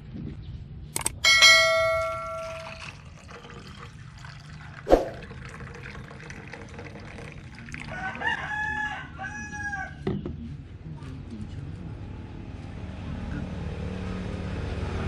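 A rooster crows with several arching, rising-and-falling notes about eight seconds in. Earlier, a short steady ringing tone fades out after about a second and a half, and there is a sharp knock about five seconds in.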